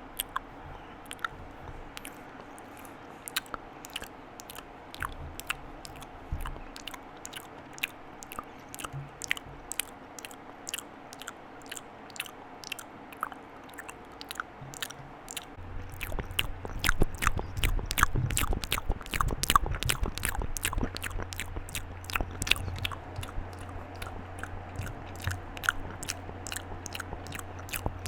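Close-miked ASMR mouth sounds: wet clicks and smacks of the lips and tongue, sparse at first, then faster and louder from about halfway in, with a low rumble underneath.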